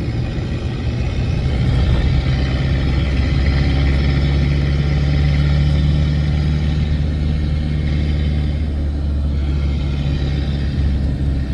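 Motor vehicle engine running steadily while driving, a low hum with road noise over it; it eases off a little about eight seconds in.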